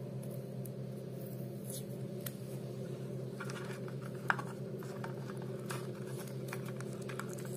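Faint clicks and scratches of hands handling thin wires and a roll of electrical insulating tape, with one slightly louder click about four seconds in, over a steady low hum.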